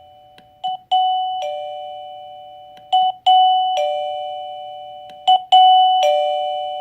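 A wireless doorbell chime receiver plays its two-note ding-dong three times, each a little louder, as its volume is stepped up. Short blips come between the chimes.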